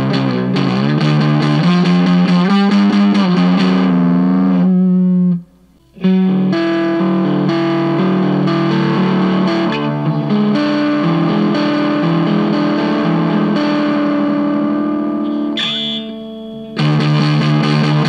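Looped electric guitar riff played through a DIY Stewmac Sun Fuzz (Fuzz Face-style) pedal, giving a distorted fuzz tone with fuzz and bias at 3 o'clock. A 2N5088 silicon NPN transistor is in the circuit for the first part and a 2N2222A for the rest. The sound breaks off briefly about five seconds in and drops lower shortly before the end.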